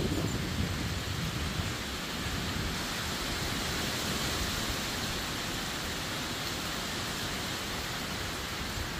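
Rain of a hurricane falling steadily, an even hiss, with a low rumble fading out in the first second or two.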